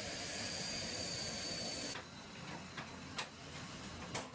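F-35 fighter's jet engine running as it taxis: a steady hiss with a faint high whine. It cuts off abruptly about two seconds in, leaving a quieter background with a few sharp clicks.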